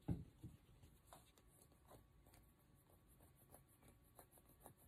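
Near silence, with a few faint, scattered ticks of tarot cards being handled on a table.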